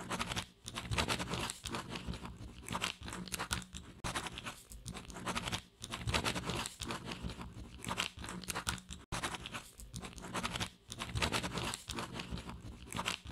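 Scribbling on paper: a handwriting sound effect of scratchy strokes in runs of one to two seconds, broken by short pauses.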